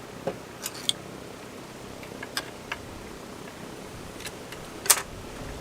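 Scattered light clicks and knocks from handling a Stihl 020 AV chainsaw by hand, with a sharper knock near the end, over a steady faint hiss; the saw's engine is not running.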